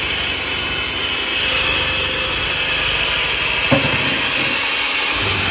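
Electric hand mixer running steadily with a high whine, its beaters churning thick cake batter in a bowl. A single short knock comes a little under four seconds in.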